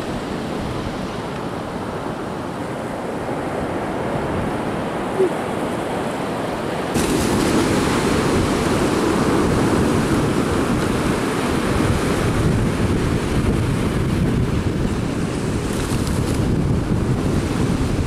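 Surf washing onto the beach with wind buffeting the microphone, as a steady rushing noise that steps louder about seven seconds in. One short blip about five seconds in.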